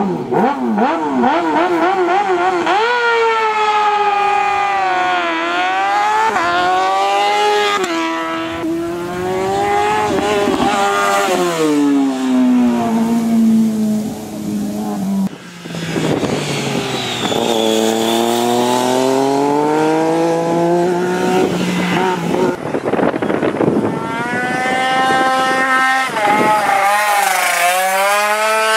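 Racing motorcycle engines revving hard and shifting up through the gears, the pitch climbing and then dropping at each change. Several passes follow one another, each breaking off abruptly.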